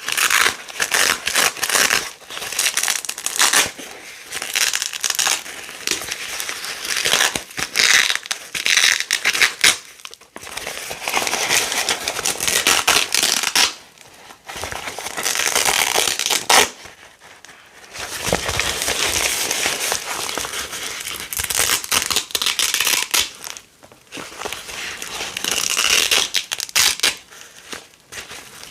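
Small pieces of hook-and-loop (Velcro) fastener being ripped apart and pressed together again and again, giving crackly, rasping tears in quick strokes with a few short pauses.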